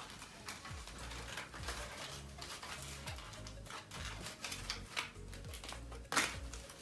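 Crumpled aluminium foil crinkling and crackling in many small bursts as hands press and smooth it flat on a table, over quiet background music with a low bass line.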